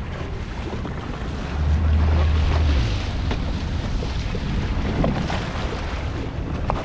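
Wind buffeting the microphone on a moving powerboat, over water splashing and a steady low rumble, with a louder stretch of low rumble from about one and a half to three seconds in.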